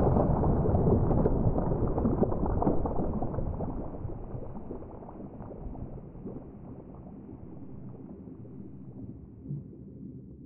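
Bubbling, gurgling water heard dull and muffled, as from under the surface. It fades over the first half to a faint low rumble.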